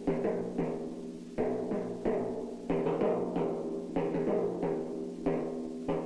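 A pair of pedal timpani struck with mallets in a quick, uneven run of strokes, two or three a second, each note ringing on under the next.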